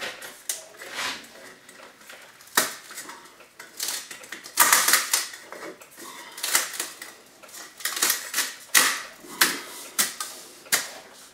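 Irregular metallic clicks and clanks as sheet-metal stove pipe parts and a trim ring are worked into place by hand. The clatter is loudest a little under halfway through.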